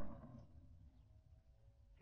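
Near silence: quiet room tone after a spoken word trails off at the very start.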